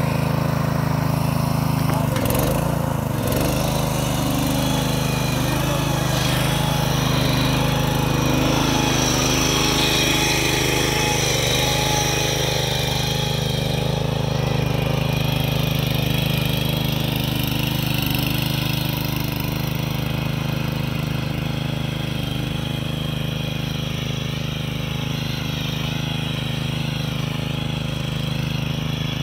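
Power weeder's small engine running steadily under load as it drags a ridger through the soil, cutting a furrow.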